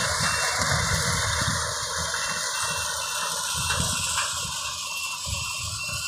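Farm machinery engine running steadily in the distance, with a faint steady whine and uneven low rumbling from wind on the microphone.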